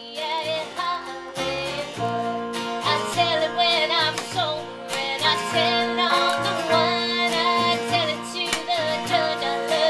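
Live country music played on an acoustic guitar and an electric guitar, with a steady strummed rhythm under a wavering melodic lead line.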